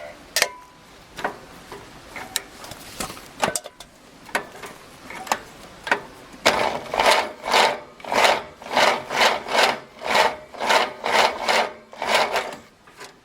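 Scattered clicks and knocks, then rhythmic back-and-forth scraping strokes, about two a second, from about six and a half seconds in until near the end.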